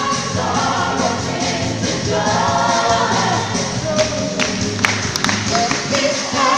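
Gospel choir singing with instrumental backing, a steady bass line underneath and a few sharp percussive hits.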